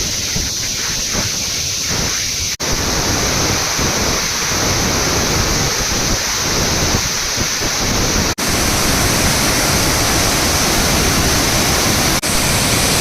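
Waterfall's rushing water: a loud, steady noise, dropping out for a split second about two and a half, eight and twelve seconds in.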